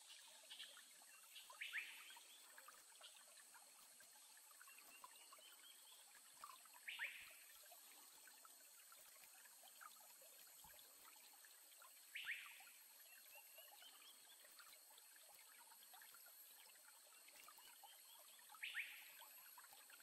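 Faint forest stream ambience: a low trickle of water under a steady high hiss, with an animal call repeated four times, about every five to six seconds, each a short rising run of notes ending in a louder sweeping note.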